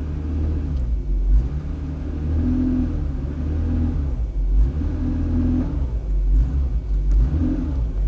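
Volvo XC90 running in drive with a steady low rumble and a humming tone that swells and fades every couple of seconds. The owner reports no whine in this gear.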